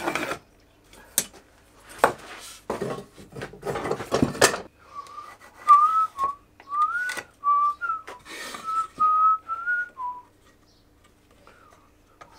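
A few knocks and rattles of wooden boards and a steel square being laid on a workbench, then a person whistling a short tune for about five seconds.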